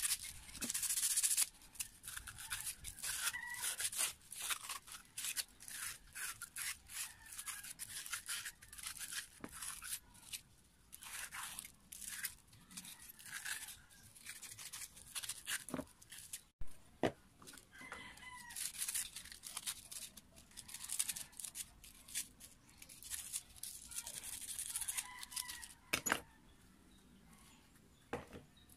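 Cloth rag rubbing and scrubbing grime off metal parts of a dismantled Makita electric planer, in quick, irregular rubbing strokes that stop a couple of seconds before the end.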